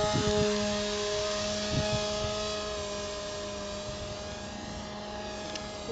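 Electric RC model plane's motor and propeller giving a steady, buzzing whine in flight. It slowly fades as the plane flies off.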